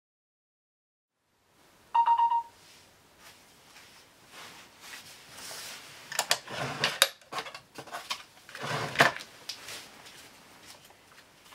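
A short electronic beep about two seconds in, a single steady tone lasting about half a second. Then rustling of bedding and clothes as a person shifts about on a bed, with two louder rustles.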